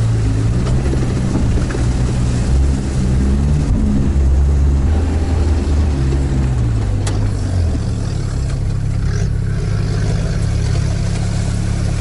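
Diesel engine of a Sherp all-terrain vehicle running under load, its pitch rising and falling through the first several seconds as the revs change, then holding steady.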